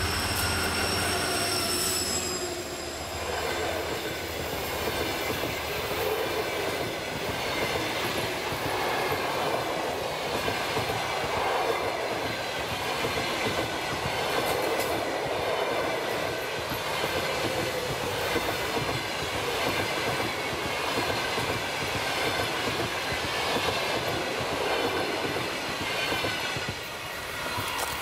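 TEP70 diesel locomotive passing close by, its engine note falling in pitch as it goes past in the first couple of seconds. Then the passenger coaches roll by with a steady rumble and a regular clickety-clack of wheels over rail joints, dropping off near the end as the last coach draws away.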